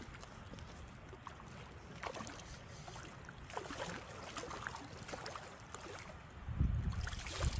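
River water gurgling at the bank with scattered splashes as a hooked carp is played on a spinning rod; a loud low rumble, like wind on the microphone, comes in near the end.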